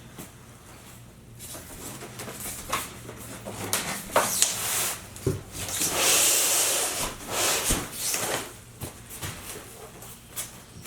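Packaging of an unboxed AV receiver being handled: scattered knocks and clicks, with a longer rustling scrape about six seconds in.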